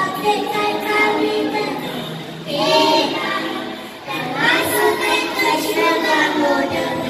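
A group of young children singing together, in sung phrases with short breaks about two and a half and four seconds in.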